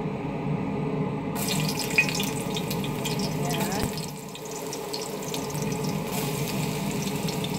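Chopped garlic frying in hot oil in a pan, a crackling sizzle that starts suddenly about a second and a half in and keeps on as more garlic is dropped in.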